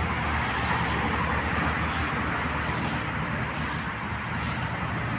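Steady road traffic noise from a nearby road: an even rushing hiss over a low engine hum, with no single vehicle standing out.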